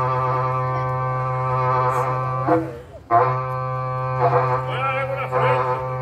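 Berrante, a Brazilian ox-horn cattle trumpet, blown in a long held note that breaks off about two and a half seconds in, then starts again sharply and goes on with a wavering repique.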